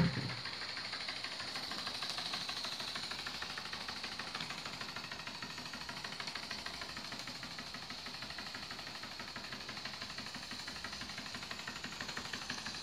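Danni #3 single-cylinder model stationary steam engine running steadily under steam: a fast, even chuffing and clicking over a steady hiss.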